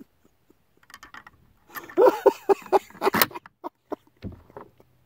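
Metallic clicks and rattles from the action of a Carcano M38 bolt-action carbine being handled between shots, with a short laugh about two seconds in and a dull thump near the end.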